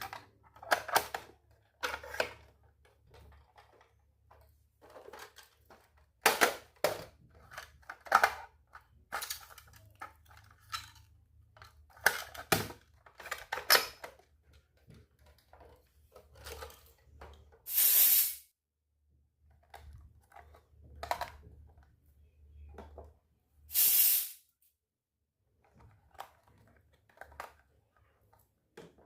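Small toy kitchen pieces being handled and set down, making a scatter of irregular light clicks and taps. Two short, loud hisses, like plastic wrapping rustling, come about two-thirds of the way in and again near the end.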